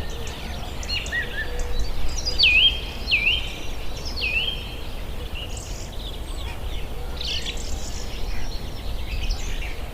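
Several birds chirping and singing over a low steady rumble, with one call repeated three times in quick succession a few seconds in.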